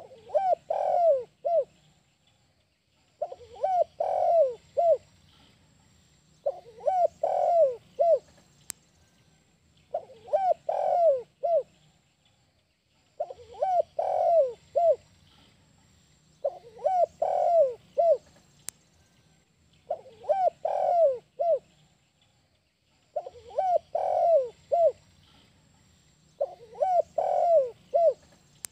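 Spotted dove cooing: a phrase of about four short, falling coos repeated at an even pace, roughly every three seconds.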